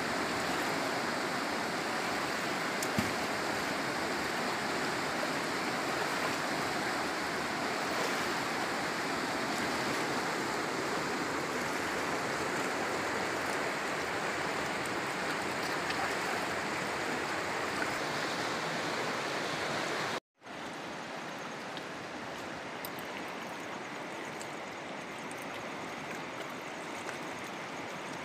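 Fast-flowing river rushing over rapids, a steady rush of water. It cuts out for an instant about two-thirds of the way through and comes back a little quieter.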